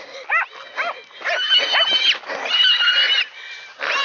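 A few quick dog barks in the first second, then a feral pig squealing: two long, loud, high-pitched squeals, with a third starting near the end, as the hunting dogs catch it.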